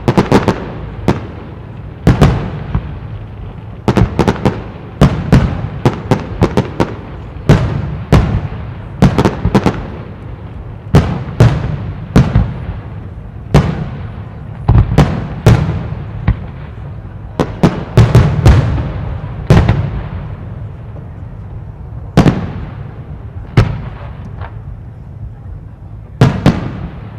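Aerial fireworks shells bursting in a steady run of sharp bangs, about one or two a second, each followed by a rolling echo.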